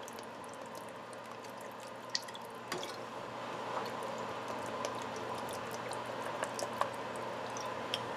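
Red wine vinegar trickling and dripping from a tilted bottle into a pot of vegetable soup, with faint scattered ticks over a low steady hiss.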